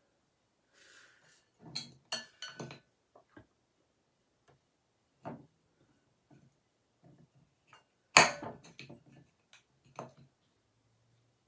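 A metal digging tool chipping and scraping at a crumbly dig rock in a glass bowl: scattered clicks and scratches, with the loudest, a sharp clink, about eight seconds in.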